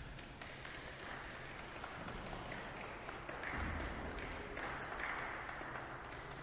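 Audience applauding, a dense patter of clapping that grows louder about halfway through and then eases slightly.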